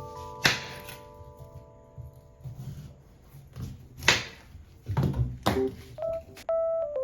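Soft background keyboard music with slowly fading held notes, over several sharp knocks and clatters from household work, the loudest about half a second in and about four seconds in.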